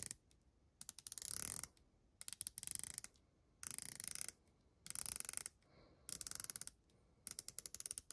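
Ratcheting clicks of the ceramic dive-watch bezel on an Oris Aquis Date Calibre 400 being turned by thumb in short strokes. About six quick runs of rapid fine clicks, each under a second long, with brief pauses between them while the thumb resets.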